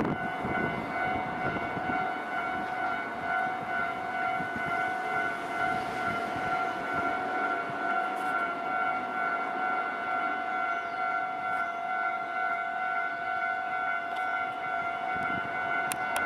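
Japanese level-crossing warning alarm ringing steadily with its electronic tones, the signal that a train is approaching or passing.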